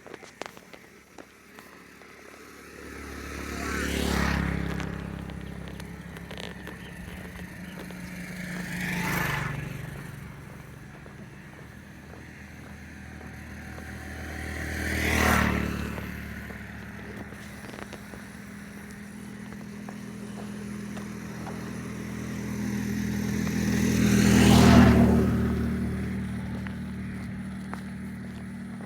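Motor vehicles passing by one after another, four times, each engine growing louder and then fading away; the last pass is the loudest.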